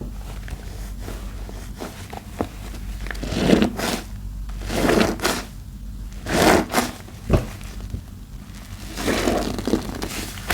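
A porous sponge squeezed in thick laundry-detergent soap paste, giving four wet squishes about a second and a half apart, with a sharp click between the third and fourth. A steady low hum runs underneath.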